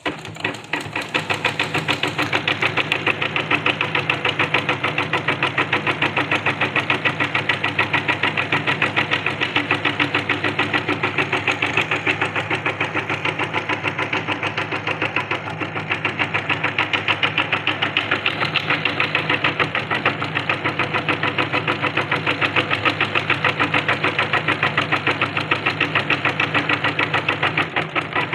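Janome Secio embroidery machine stitching out a design, its needle bar running in a rapid, even, continuous rhythm.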